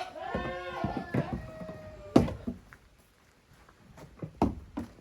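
Young goat kid bleating, one long wavering call in the first two seconds, followed by a sharp knock and a few lighter thumps.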